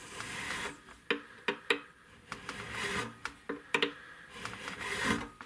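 A .046 nut-slotting file rasping back and forth in a string slot of the nut, deepening a slot started with a razor saw. It makes a few slow rubbing strokes, with sharp little ticks in between.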